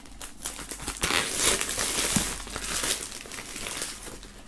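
Clear plastic shrink-wrap crinkling and crackling as it is peeled off a cardboard box.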